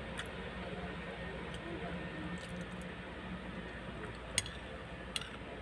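A metal spoon clinking twice against a ceramic bowl near the end, under a second apart, over a steady low background hum.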